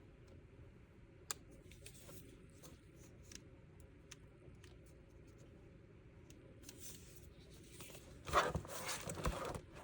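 Handling noise from camera gear being moved: a few faint clicks, one sharper click about a second in, and a louder rustle near the end.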